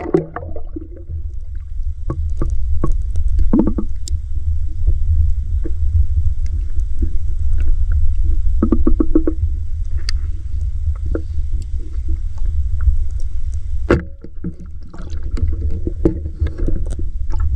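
Water sloshing and splashing as someone moves through shallow water, over a steady low rumble, with scattered clicks and knocks.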